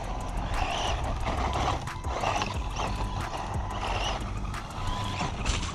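1/14-scale electric RC buggy driving on packed dirt: its motor whines up and down in repeated swells as the throttle is worked, with small clicks and knocks from the buggy on the dirt.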